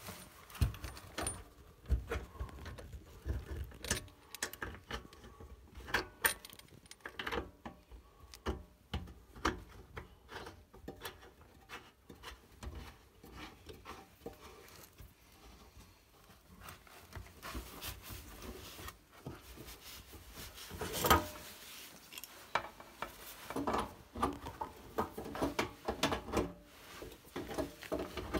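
Irregular small clicks, rubbing and knocks of handling and moving about in a cramped space under household plumbing, with one louder knock a little past two-thirds of the way through.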